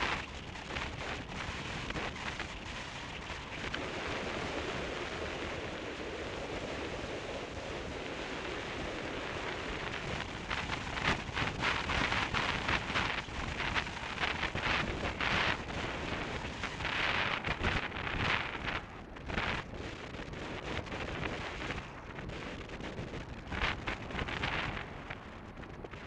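Wind buffeting the microphone of a camera on a moving car, in uneven gusts, over the car's steady road and driving noise.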